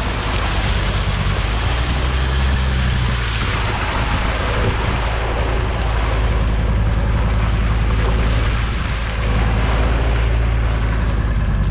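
Volvo XC90 driving through a water-filled muddy rut, heard from a camera mounted low beside the front wheel: the tyre churns and splashes through water and mud over a constant low rumble, with wind buffeting the microphone.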